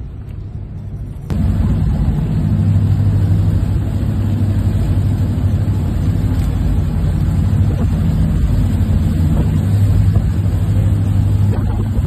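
Patrol boat's engines droning steadily under way, over a steady wash of noise. The sound steps up louder about a second in and then holds.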